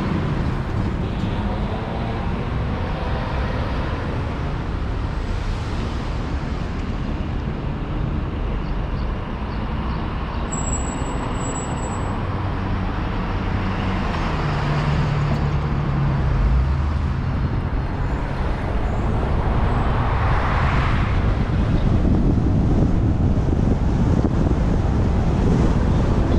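Continuous wind and road noise from a Honda Odyssey minivan driving on a city street, picked up by a camera on its roof: tyre and engine rumble with surrounding traffic. It grows a little louder in the second half.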